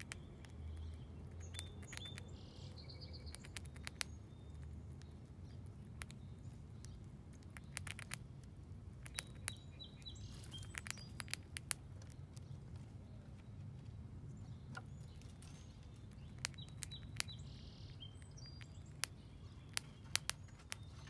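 Grey squirrel chewing dried corn kernels: sharp irregular clicks and crunches, bunched in quick clusters. Small birds chirp a few times in the background over a steady low rumble.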